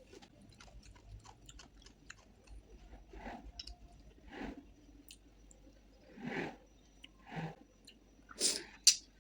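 Close-up chewing and wet mouth sounds of a person eating rice and curry, soft smacks about once a second, with a sharp click near the end.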